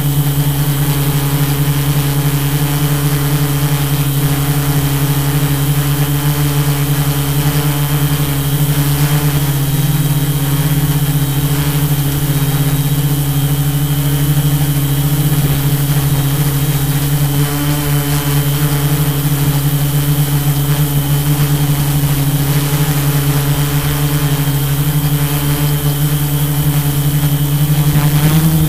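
Tarot 680 Pro hexacopter's six motors and propellers humming steadily in flight, with a thin high whine above the hum. Near the end the sound briefly gets louder and shifts in pitch as the throttle changes.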